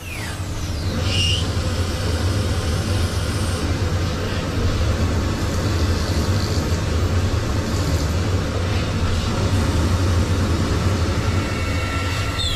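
Steady, low machine hum with a noisy rush over it, like a machine tool running, crossed by short falling whooshes near the start.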